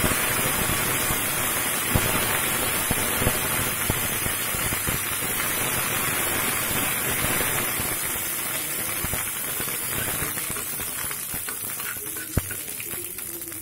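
Fresh curry leaves sizzling in hot mustard oil with mustard seeds and dried red chillies in a steel frying pan: a tempering (tadka). It is a steady hiss with a few sharp pops, easing slightly toward the end.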